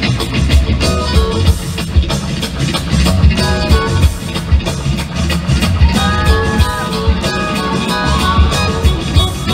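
Live electric guitar solo played to sound like turntable scratching, with gliding, bent notes, over a steady drum groove and electric bass.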